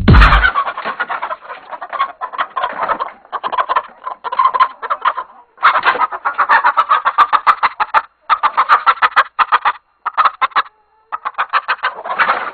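Cartoon chicken clucking very fast, in bursts of a second or two separated by short pauses.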